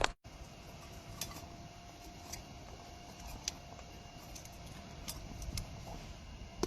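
Coal burning in a small firewood stove fitted with an electric blower: a faint steady hum with a thin tone, and sparse light ticks and crackles.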